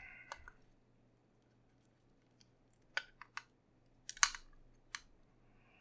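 Old battery pack being pried up off the adhesive that holds it to the iRiver iHP-120 MP3 player's metal case. It gives a few scattered small clicks and one short crackle about four seconds in.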